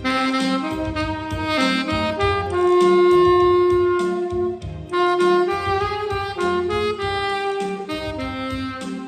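Saxophone playing a song melody in C minor, recorded dry with no added effects, with one long held note in the middle, over accompaniment with a pulsing bass underneath.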